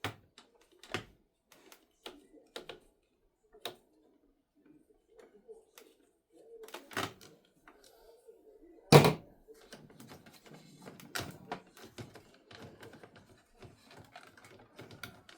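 Scattered clicks and knocks from an Epson EcoTank printer's plastic casing being handled and worked loose during disassembly, with one loud clunk about nine seconds in.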